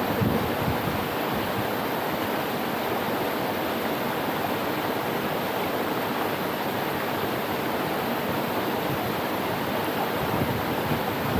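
Steady rushing water of a tropical mountain waterfall and stream, an even, unbroken roar, with a few low buffets near the start and again near the end.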